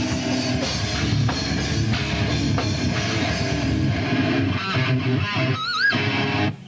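Live metal band playing loud distorted electric guitar over a drum kit. Near the end a high, wavering guitar squeal rises above the band, then the music cuts off abruptly.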